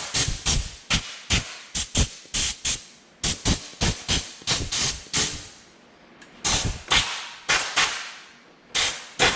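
Repeated sharp knocks, about two to three a second, each with a short fading tail; they ease off into a brief lull about six seconds in, then start again.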